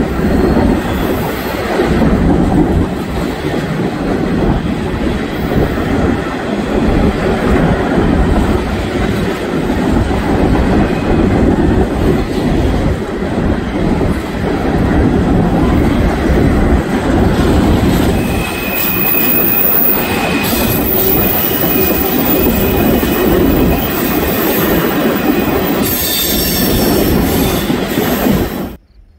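Freight train's covered hoppers and tank cars rolling past, a steady rumble of steel wheels on rail, with thin high wheel squeal coming in during the second half. The sound cuts off abruptly just before the end.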